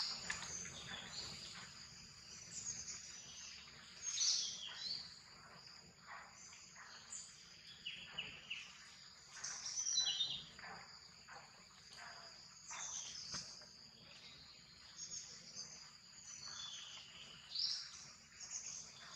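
Forest ambience: a steady high insect drone, with birds chirping in short, falling calls every few seconds.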